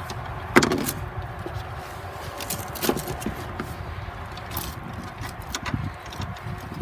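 Metal air-conditioning line fittings being handled and fitted together: a few sharp clicks and clinks, the loudest about half a second in, over a steady low rumble.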